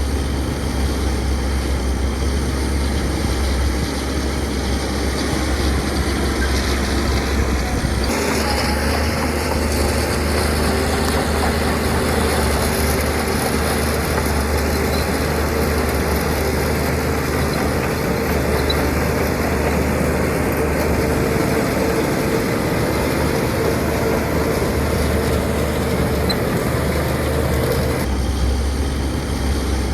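Diesel engines of heavy earthmoving machinery running steadily with a deep hum, the sound changing abruptly about a quarter of the way in and again near the end.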